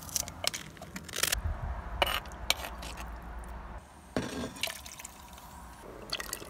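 A metal spoon clinking and scraping against enamel and clay bowls and a cooking pot: a string of short, sharp knocks, some with a brief ring.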